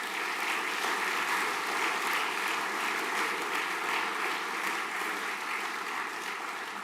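Audience applauding steadily: a school assembly clapping for a group of award recipients, fading out near the end.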